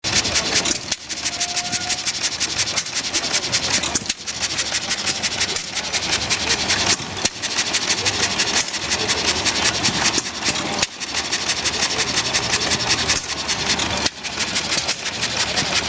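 1924 United 2 HP water-cooled hit-and-miss petrol engine with low-tension ignition running, a rapid steady clatter with short lulls every few seconds.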